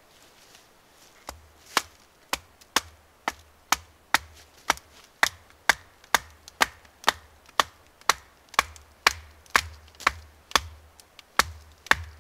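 A wooden baton striking a fixed-blade knife to split a piece of dead wood, in a steady run of sharp blows at about two a second.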